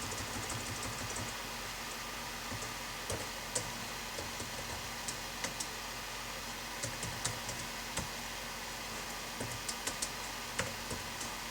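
Typing on a computer keyboard: scattered short runs of key clicks with pauses between them, over a steady faint background hum.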